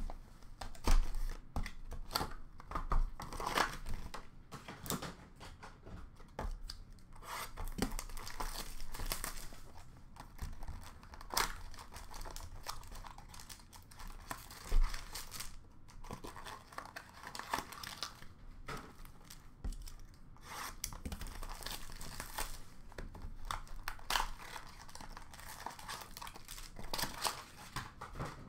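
Trading-card box and foil packs being opened by hand: irregular crinkling and tearing of wrappers, with sharp rustles and a few soft knocks as the box and packs are handled.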